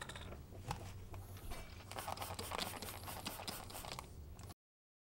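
Cloth rag rubbing and wiping in a finned metal reaction chamber, with scattered clicks and knocks of handling; the rubbing is densest in the middle and the sound cuts off suddenly near the end.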